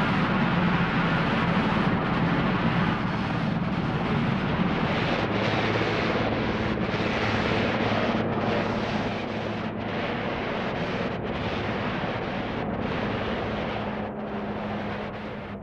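Aircraft engines running: a steady rushing noise with a low hum underneath, fading gradually.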